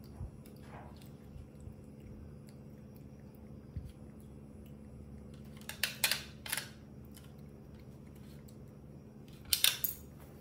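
A metal spoon scraping and clicking against a plastic yogurt cup in two short bursts, about six seconds in and again, louder, near the end, over a low steady hum.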